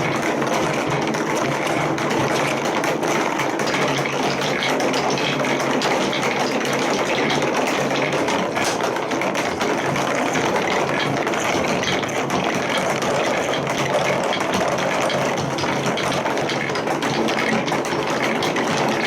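Many balls rolling and clattering down plastic TrixTrack marble-run track together, a dense steady rattle of tiny clicks.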